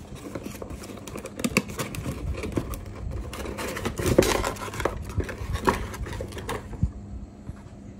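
Packaging and paper handled by hand: a quick run of clicks, taps and rustles, loudest about four seconds in, stopping shortly before the end.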